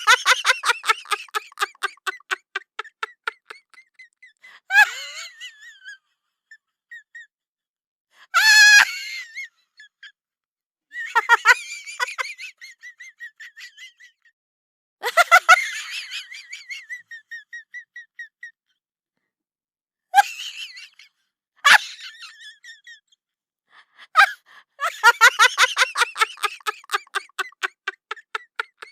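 Repeated bursts of laughter-like voice sounds, each a quick run of short pulses that fades away, with a brief wavering whistle-like burst about a third of the way through.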